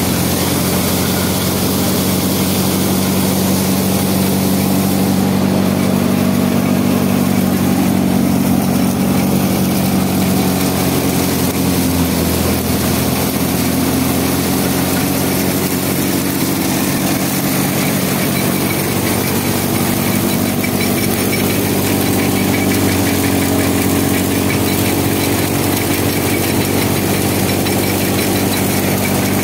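Tractor-driven wheat thresher running steadily as wheat stalks are fed in: the tractor engine and the thresher drum together make a constant loud mechanical drone.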